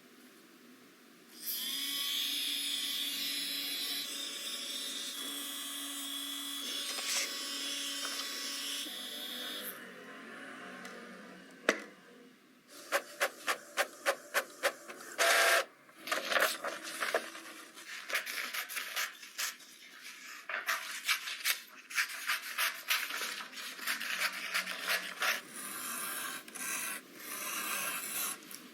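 Tiny DC motor and handmade fan of a miniature hair dryer whirring steadily for about eight seconds, then stopping. A run of evenly spaced clicks follows, about three a second, and then irregular scraping and rubbing of hand craft work.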